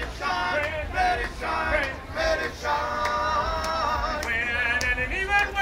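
A street vocal quartet singing a cappella in harmony, with a long held chord about three seconds in and notes wavering after it.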